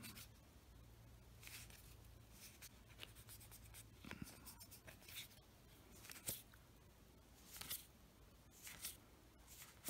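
Faint, scattered rustles and soft clicks of Magic: The Gathering cards being slid and flipped through in the hands, one card at a time, over a low room hum.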